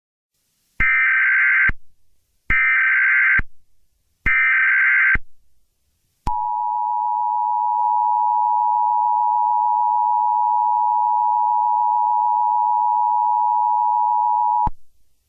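Emergency Alert System alert tones: three short, identical bursts of SAME header data screech, then the steady two-tone EAS attention signal held for about eight seconds before it cuts off.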